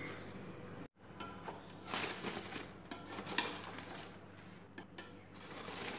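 Faint clinks and crinkling as a glass pot lid is lifted off a biryani pot sealed for dum cooking and the aluminium-foil seal underneath is handled, with a few sharper knocks about two and three and a half seconds in.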